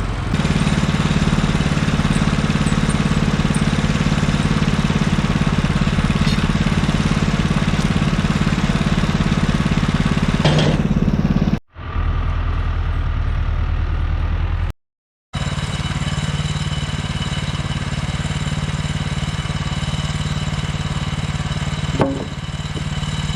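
An engine running steadily, broken twice by abrupt cuts about twelve and fifteen seconds in, with the engine sounding different after each cut.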